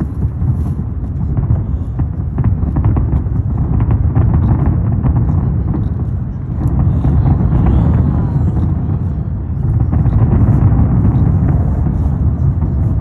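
Fireworks display: a continuous low rumble of bursts with dense crackling over it.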